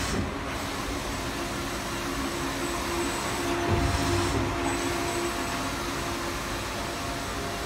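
Mimaki Tiger direct-sublimation textile printer running: a steady mechanical hum and whir with a faint held tone. The noise swells briefly, with more low rumble, about three and a half seconds in.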